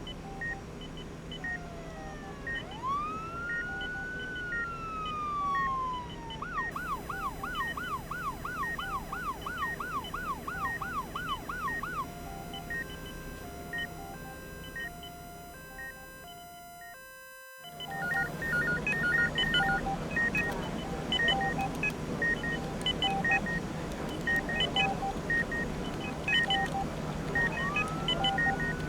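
Emergency vehicle siren going through a slow rising-and-falling wail, then a fast yelp of about three sweeps a second, then a two-tone hi-lo, over steady repeated beeping from medical equipment and a low hum. The sound drops out briefly just past the middle, then the beeping returns and the wail starts again near the end.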